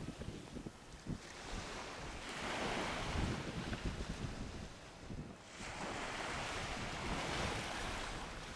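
Wind buffeting the microphone outdoors: a rushing noise that swells and fades in gusts, with irregular low thumps.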